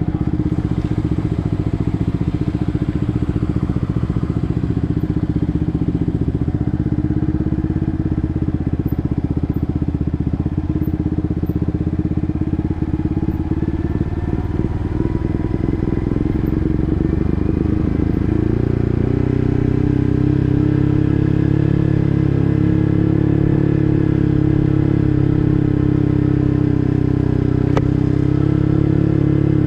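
Yamaha MT-15's 155 cc single-cylinder engine breathing through an SC Project full-system exhaust while riding. About two-thirds of the way through, the engine note jumps to a louder, steadier pitch as the throttle opens, then holds.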